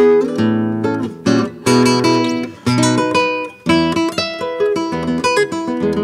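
Solo classical guitar playing a waltz: a plucked melody over chords, with several chords strummed hard.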